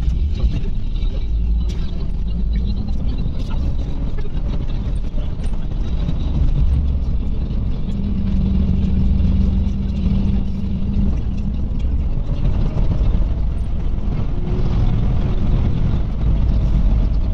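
Iveco Crossway LE 12 bus under way, heard from inside the front of the passenger cabin: a steady low rumble of engine and road noise. A low hum holds steady for a few seconds about eight seconds in.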